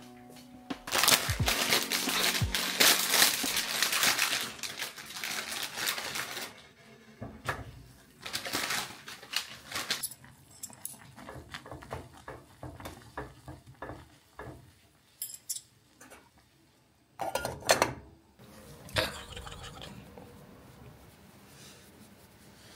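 Cooking sounds: chopsticks clinking and scraping in a stainless steel pot of instant ramen, with scattered clicks and knocks. About a second in comes several seconds of loud rushing noise.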